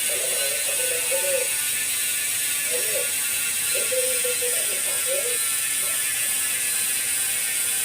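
Sagmit M120 bicycle hub's freehub clicking as the wheel spins freely, a steady fast buzz of ratchet clicks. It runs fairly quiet because the hub is still packed with fresh grease.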